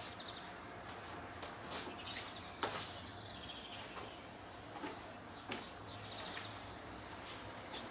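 A bird gives a quick high trill of rapid repeated chirps about two seconds in, lasting about a second. A few faint knocks of footsteps on the wooden deck and a low steady hum lie underneath.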